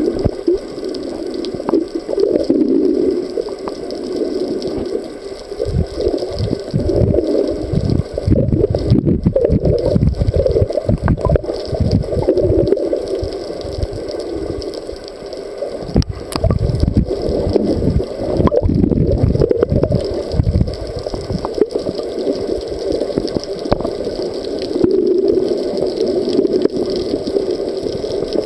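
Muffled gurgling and sloshing of water heard through a camera held underwater, with irregular low thumps, thickest in the middle.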